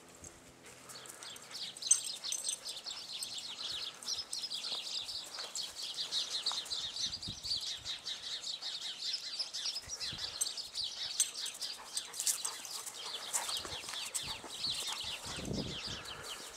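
Many small birds chirping and chattering in a dense, rapid stream of high chirps that starts about two seconds in; a brief low rumble comes near the end.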